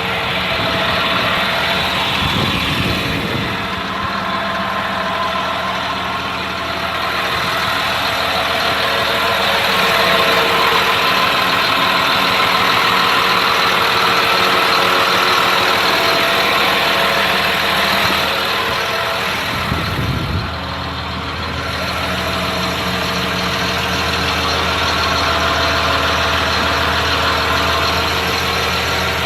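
Caterpillar C7 inline-six diesel of a school bus idling steadily.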